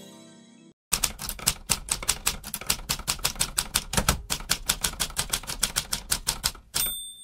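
Typewriter sound effect: a fast, even run of key clacks, several a second, ending in a bell ding near the end.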